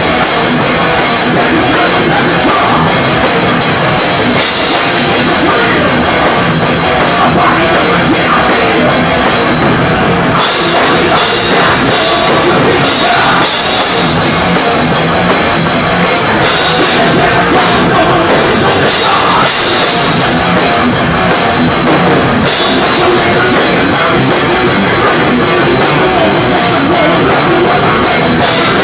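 Loud live thrash metal with a drum kit up front: fast, dense drumming and crashing cymbals, without a break.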